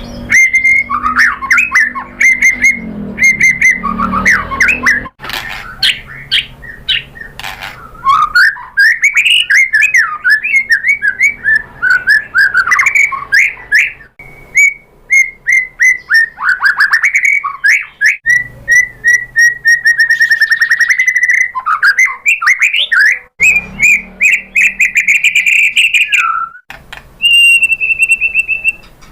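White-rumped shama (murai batu) singing a long, fast stream of varied loud whistles, chirps and rapid trills, with hardly a pause.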